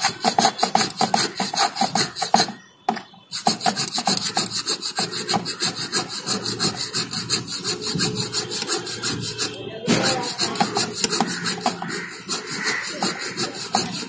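A hand-held saw blade cuts back and forth through a worn shock-absorber bush pressed into the scooter engine casing's mounting eye, in quick, even rasping strokes with a short pause about three seconds in. The damaged bush is being sawn out for replacement; only the bush is cut, not the casting around it.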